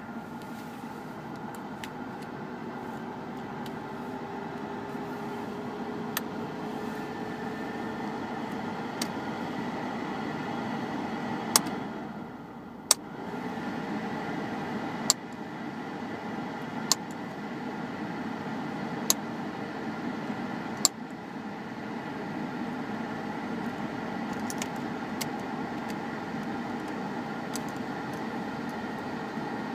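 Car air-conditioner switch being pressed, giving sharp single clicks every two seconds or so over the steady hum of the running car. The hum dips briefly about twelve seconds in, then returns.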